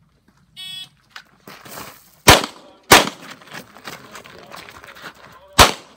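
An electronic shot timer gives its start beep. About a second and a half later comes the first of three handgun shots, the second following about half a second after it and the third near the end.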